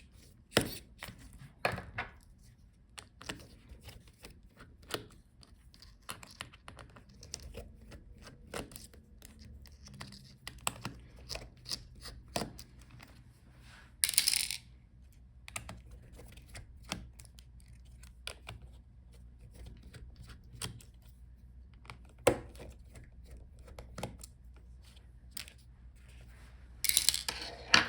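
Scattered small clicks, taps and light metallic clinks from a precision screwdriver backing out the laptop's hinge screws and the small screws and parts being handled. A short scraping rustle comes about halfway through, and another near the end.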